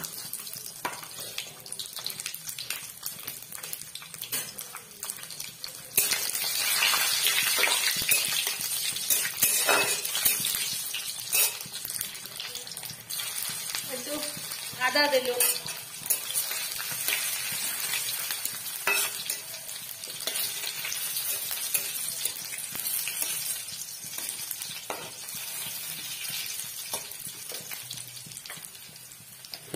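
Oil sizzling in a steel kadai with green chilli, bay leaves, cumin and ginger frying. The sizzle jumps louder about six seconds in as the ginger goes in, then settles. A spatula scrapes and taps against the pan as it stirs.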